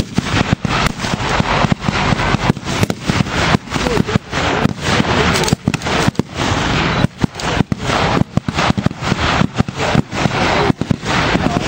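Blank gunfire from rifles and machine guns in a WWII battle re-enactment: dozens of sharp shots and short bursts at irregular intervals, some close together, over a steady background noise.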